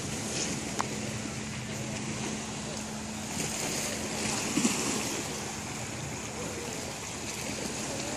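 Wind on the microphone and small waves on a lake shore, with the steady low hum of a distant motorboat engine that stops about halfway through. A short bump sounds about halfway.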